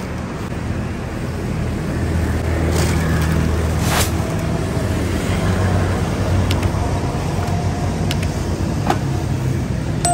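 Street traffic with a motor vehicle engine running close by, a steady low hum, and one sharp click about four seconds in.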